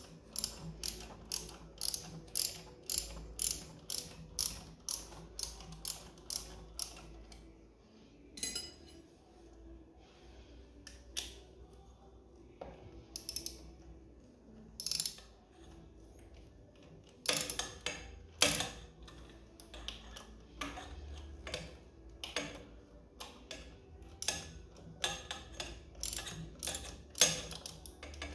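Hand socket ratchet clicking as it is worked back and forth to undo bolts, about two sharp clicks a second, with a pause of several seconds midway before the clicking starts again.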